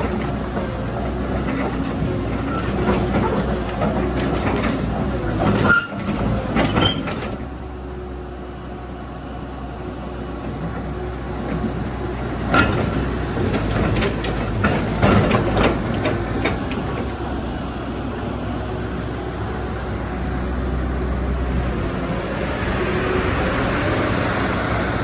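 Caterpillar 312D tracked excavator's diesel engine running steadily, with metallic clanks and knocks from the machine working, loudest about six seconds in and again in a cluster a few seconds past the middle.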